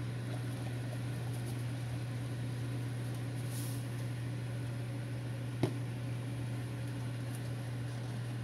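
Water at a rolling boil in a glass pot on a stovetop, under a steady low hum, with one sharp click about five and a half seconds in.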